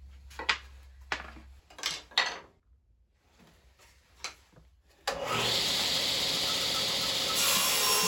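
A few short knocks and scrapes of wooden boards being handled. About five seconds in, a table saw starts running with a loud steady noise, which grows brighter near the end as it cuts a board.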